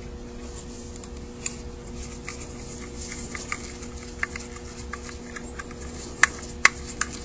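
Light metal clicks and taps from handling a Carter WA-1 carburetor's air horn and a screwdriver, with a few sharper clicks near the end as the screwdriver goes onto a choke-plate screw. A steady hum runs underneath.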